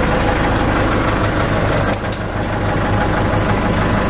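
Nissan Navara pickup's engine idling steadily while the truck stands in reverse gear.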